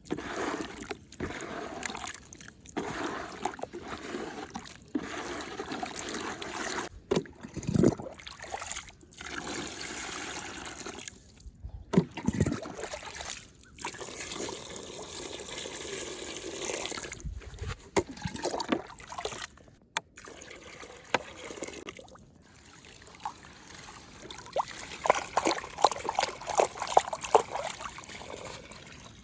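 Muddy water trickling and sloshing as it swirls down a whirlpool hole in clay, with several brief breaks. A run of sharp little splashes comes near the end.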